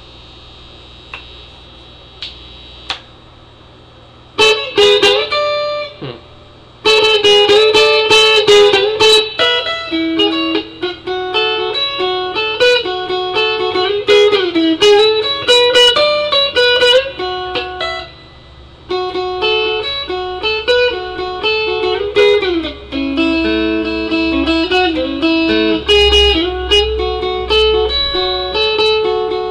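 Danelectro-style electric guitar with a cutting-board plastic body and GFS Pro Tube pickups, played on the bridge pickup. A few stray picked notes and a short burst come first, then a long run of picked single notes and arpeggiated chords, broken once by a short pause.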